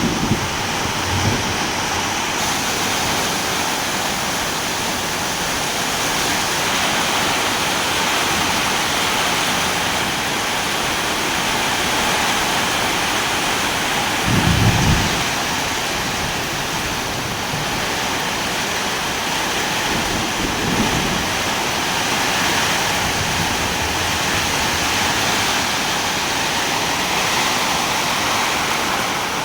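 Steady rain hissing without a break, with short low rumbles of thunder: a faint one about a second in, the loudest about halfway through, and a weaker one later on.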